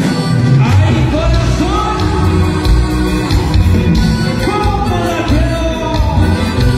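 Loud live band music with singing over a heavy bass line; the singing comes in about half a second in.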